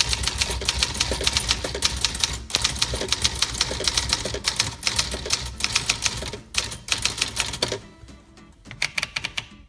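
1950 Remington All New Personal manual typewriter being typed on: a fast, dense run of keystrokes with the typebars striking the platen, thinning to a few scattered strokes near the end. Background music plays underneath.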